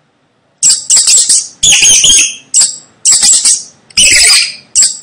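Mice squeaking: loud, high-pitched chirping squeaks in short rapid bursts, about one burst a second, starting about half a second in.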